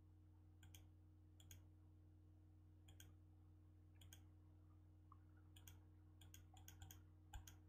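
Near silence with faint computer-mouse clicks, about a dozen, scattered at first and coming closer together near the end, over a faint steady low hum.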